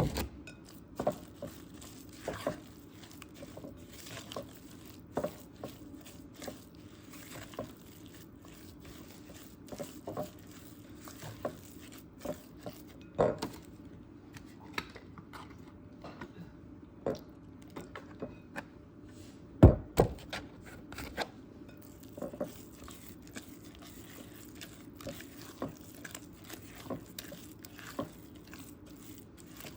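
Spoon stirring thick cornbread batter in a mixing bowl, knocking and scraping against the bowl in irregular clicks, with one louder knock about twenty seconds in.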